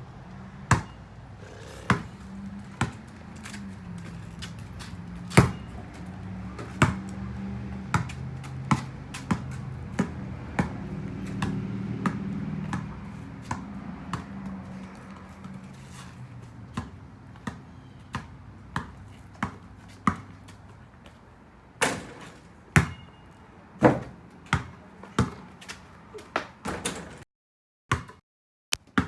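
Irregular sharp taps and knocks, roughly one or two a second, over a low steady hum that fades out about halfway through.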